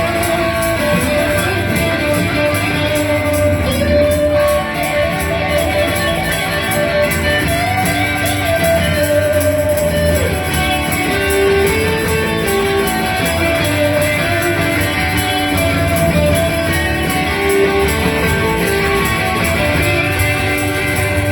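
Rock band playing an instrumental break, a guitar carrying the melody over a steady beat.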